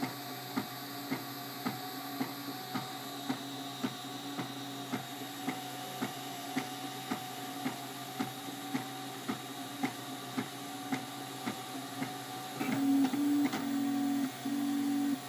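MakerBot Replicator 3D printer running a print: a steady hum from its extruder fans and motors, with a sharp tick about twice a second as the print head moves. Near the end a louder low motor tone comes in, switching on and off in short pulses.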